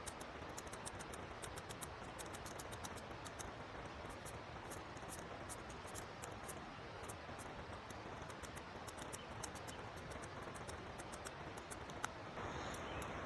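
Knife shredding a cucumber: quick, light, irregular clicks, several a second, over a steady rush of river water.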